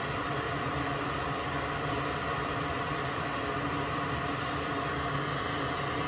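Steady fan-like hiss with a low hum from bench equipment running while a relay is desoldered from the control board, even and unchanging throughout.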